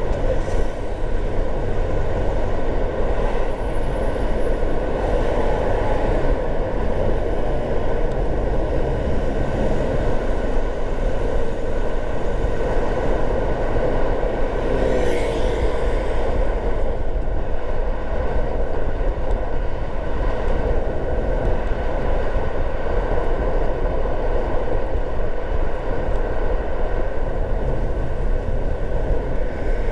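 Car driving on city roads: steady road and tyre noise with engine hum, and a brief louder swish about halfway through.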